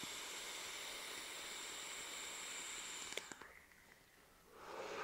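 Vape atomizer firing and drawn on in a long inhale: a faint steady hiss with a thin whistle for about three seconds, cut off with a small click. A breathy exhale follows near the end.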